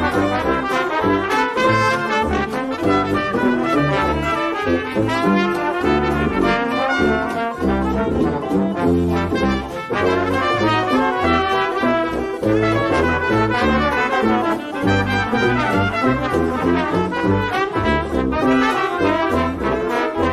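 Background music led by brass instruments, with a melody of quickly changing notes over a bass line.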